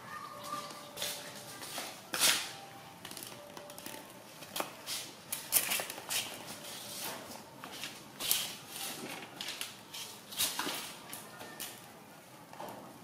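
Irregular rustling, clicks and taps of a baby macaque scuffling with a plastic mesh net bag and small plastic balls on a tiled floor.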